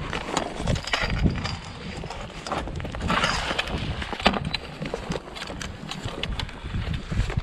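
Hooked chum salmon thrashing and splashing at the water surface as it is scooped into a landing net. Clattering knocks from the net's long pole and the tackle are heard throughout, with the heaviest splashing about three seconds in.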